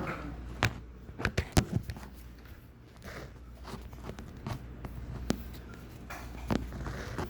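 Scattered knocks and clicks of a plate and food being handled, with a quick cluster of them about a second and a half in, over a low steady room hum.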